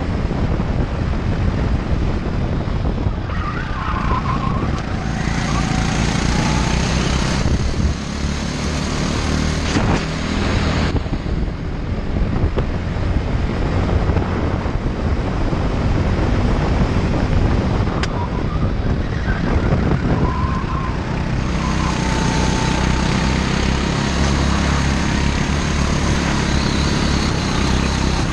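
Go-kart engine running hard, heard from on board the kart, its pitch rising and falling as the driver accelerates down the straights and backs off for corners.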